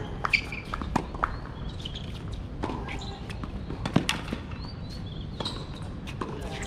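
Tennis rally on a hard court: a few sharp knocks of the ball off rackets and the court surface, the loudest about four seconds in. Birds chirp in the background.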